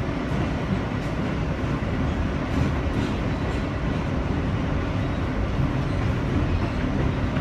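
Interior running noise of an R160B New York subway car under way: a steady rumble of wheels on rail with a steady low hum, and a few faint clicks.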